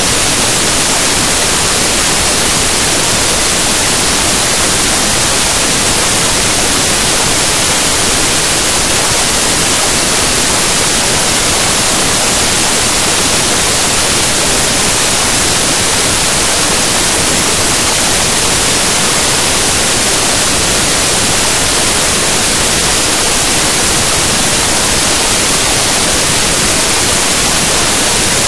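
Loud, steady static hiss with nothing else audible: the audio track has dropped out to noise.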